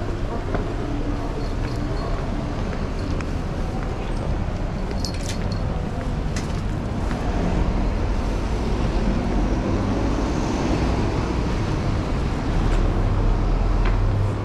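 Busy city street ambience: a steady wash of traffic and street noise with a low rumble that grows louder in the second half, and a few sharp clicks about five to six seconds in.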